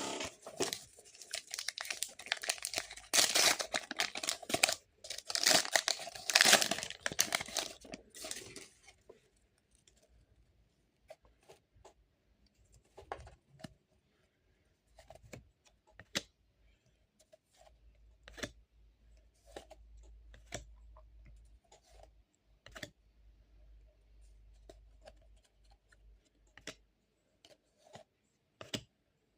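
A foil trading-card pack torn open, its wrapper crinkling loudly for about the first eight seconds. After that come quieter, scattered clicks and soft slides of the cards being handled.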